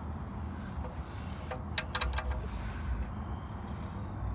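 A cheap ratchet wrench clicking a handful of times, about a second and a half to two seconds in, as the oil drain plug is run back in and tightened. Steady low background noise lies under it.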